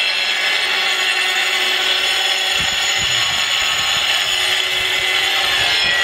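A power tool running steadily at high speed, with a dense high-pitched whine. A few low knocks come in over its second half.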